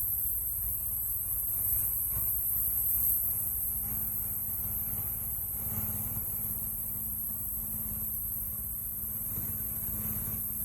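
Pressure washer running: a steady motor hum with a constant high hiss.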